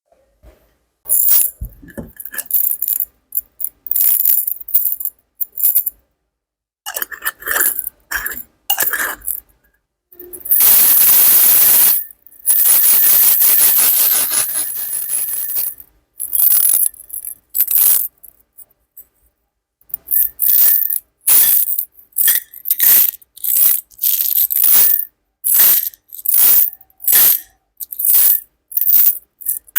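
Small hard objects clinking and tapping in short sharp strikes with a slight metallic or glassy ring, then a continuous rattling stream of them for several seconds about ten seconds in, and later a run of evenly spaced clinks, roughly two a second.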